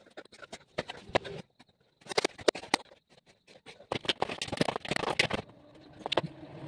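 Irregular knocks, scuffs and footfalls of a person exercising on a concrete floor, with a few sharp taps about two seconds in and a denser run of shuffling steps and thuds about four to five seconds in.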